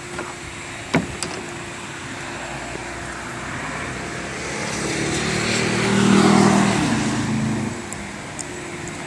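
A motor vehicle passing by: its engine grows louder over a few seconds, is loudest about six seconds in with its pitch dropping as it goes past, then fades. A single sharp knock about a second in.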